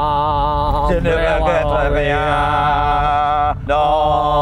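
A man's singing voice holding long notes with a wavering pitch, briefly broken about three and a half seconds in, over the low steady rumble of a car on the move.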